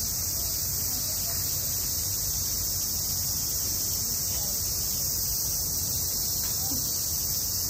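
Steady chorus of summer cicadas, a dense high sizzle that never lets up, over a low murmur of distant visitors' voices.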